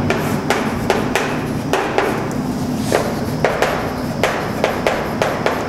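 Chalk writing on a chalkboard: a run of quick, irregular taps and scratches as letters are written, a few strokes a second.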